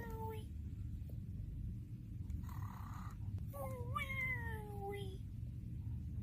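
Cartoon snoring from Face, the Nick Jr. character: a short breathy inhale, then a long pitched tone sliding downward on the exhale, with a low steady hum underneath.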